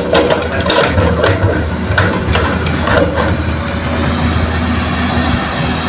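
Heavy diesel engines of a Hitachi excavator and a dump truck running steadily, while a bucketload of earth and rocks is dumped into the truck's steel bed, giving a series of thuds and clatters over the first three seconds.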